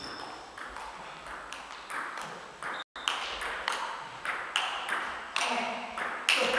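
Table tennis rally: the ball clicking back and forth off the rackets and the table, about two to three hits a second, echoing in a sports hall.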